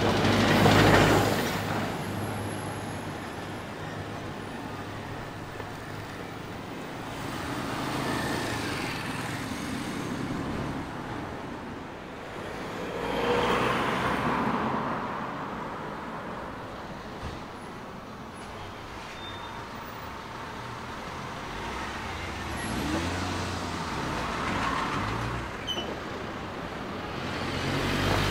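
Street traffic, with vehicles driving past one after another, each swelling and fading. A light tipper truck passing in the first second or two is the loudest, and cars and a van go by later.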